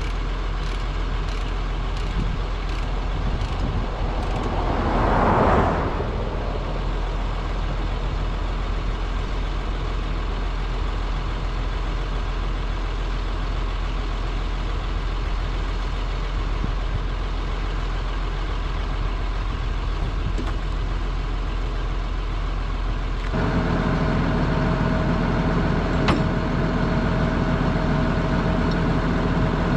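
Heavy diesel engine idling steadily, with a vehicle passing by about five seconds in. After a cut near the end, the idle is closer and louder, with a steady hum.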